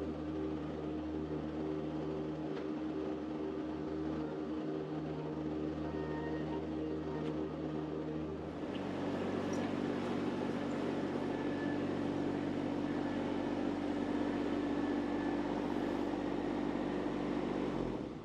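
Mini skid steer's engine running steadily while it tries to push a gooseneck trailer on a trailer-mover hitch. About eight and a half seconds in, the engine note shifts and grows a little louder.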